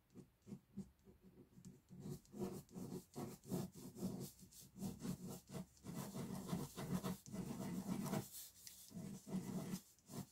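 Ink pen scratching across paper in quick, short sketching strokes, sparse at first and dense and continuous from about two seconds in.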